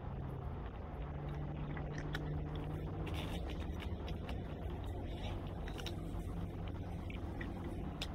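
Cats crunching dry treats out of a plastic slow-feeder puzzle bowl: irregular crunches and small clicks, coming thick from about two seconds in, over a low steady hum.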